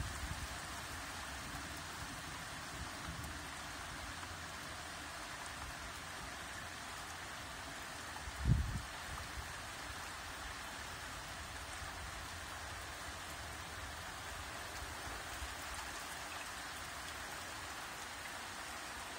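Steady rain falling, an even hiss with no let-up. One short low thump stands out about eight and a half seconds in.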